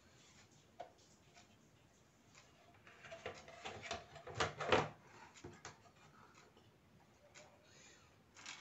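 Plastic clock case and frame parts clicking, knocking and scraping as they are handled and pressed together. A cluster of louder knocks and scrapes comes midway, the loudest about four and a half seconds in.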